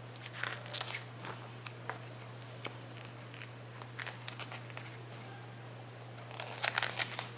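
Faint rustling and clicking of paper book pages being handled, busiest near the end, over a steady low electrical hum.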